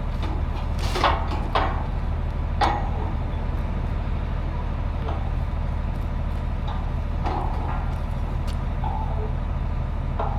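A farm machine's engine running steadily at idle, with a few sharp metallic clanks in the first few seconds.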